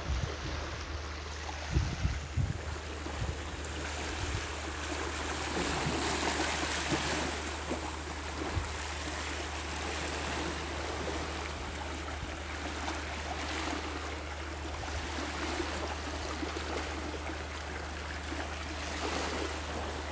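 Small waves washing onto a sandy shore, a steady hiss that swells every six seconds or so, over a low steady rumble with a few brief low thumps near the start.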